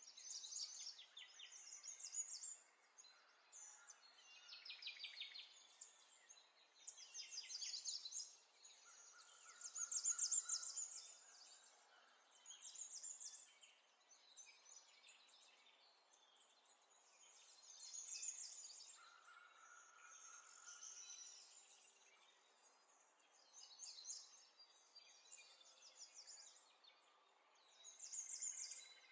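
Hands rubbing and squishing a wet spice marinade into raw chicken pieces: quiet, crackly wet squelching in short bursts every second or two.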